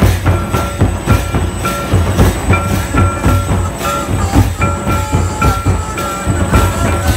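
Loud Santali folk dance music: a steady pounding drum rhythm with short, high held notes coming in and out over it.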